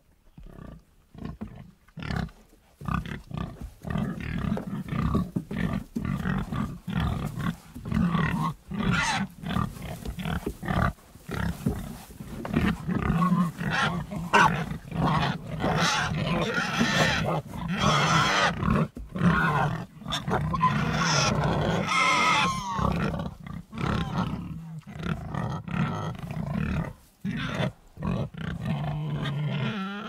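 Pigs grunting and squealing, call after call with little pause. The calls are louder and shriller through the middle of the stretch.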